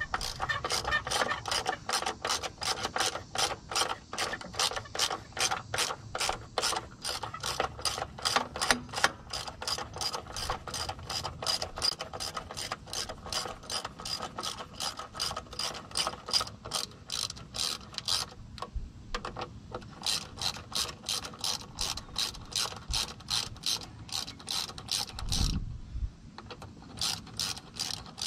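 Ratchet wrench with a half-inch socket clicking steadily, a few clicks a second, as it loosens a hose clamp on the turbo intercooler's charge-air hose. The clicking pauses briefly about two-thirds of the way through and again near the end, where there is a low thump.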